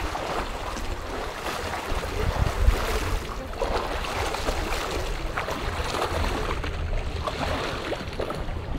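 Small lake waves lapping and splashing against a stone quay wall, with gusty wind rumbling on the microphone.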